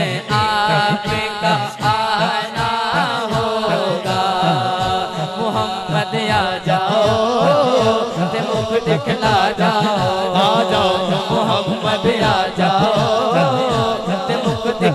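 Devotional naat singing over a microphone: a man's voice in long, gliding melodic lines, backed by a chorus of men chanting over a steady low rhythmic pulse.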